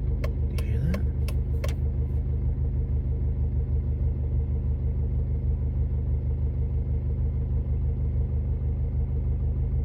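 2007 Honda Civic Si's 2.0-litre four-cylinder engine idling steadily with a rattle, which the owner suspects comes from the valves. A few sharp clicks come in the first two seconds.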